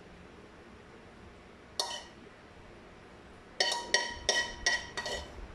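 Metal spoon clinking against a frying pan while brown sauce is spooned out: one ringing clink about two seconds in, then a quick run of clinks near the end.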